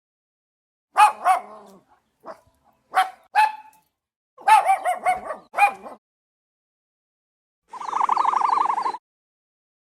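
A dog barking and yipping in a run of short, sharp barks over about five seconds. Near the end, after a short silence, comes a separate call of about a second: a rapid, even trill.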